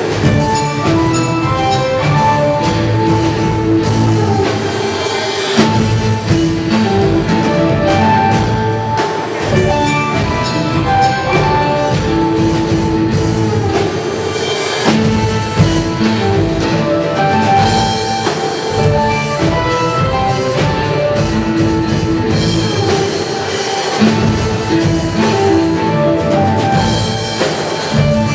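Live funk jam band playing: a drum kit beat under electric guitar and bass.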